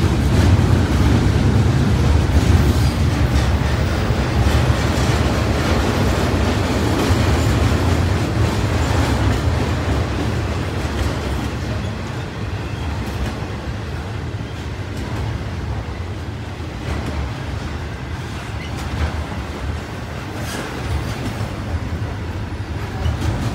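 Double-stack intermodal freight train's well cars rolling past: a steady rumble of steel wheels on rail that eases a little about halfway through.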